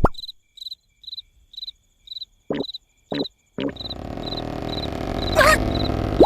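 Cartoon night-time sound effects: a cricket chirping about twice a second, with a few short sharp sounds. About halfway through, a louder, rough, steady sound starts up under the chirping, with a brief falling whine near the end.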